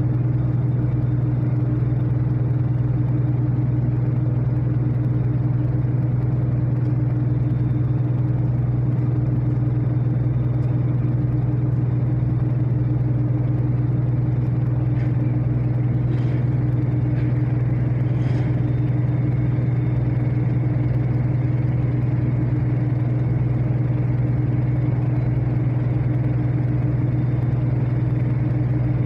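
Steady low drone of a ship's engine heard on board, unchanging throughout, with a few faint ticks about halfway through.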